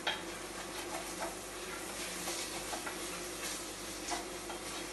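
Leeks and garlic sweating gently in a pot, a quiet steady sizzle, with a few light taps of a spoon as sliced chilli is stirred in.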